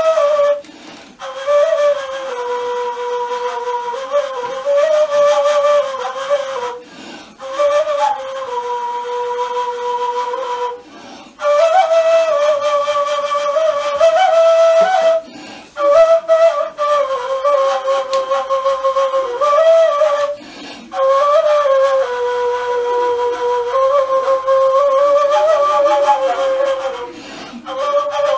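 Kaval, the Turkish end-blown shepherd's flute, playing a melody of long held notes with small ornamental turns, breaking off briefly for breath every few seconds.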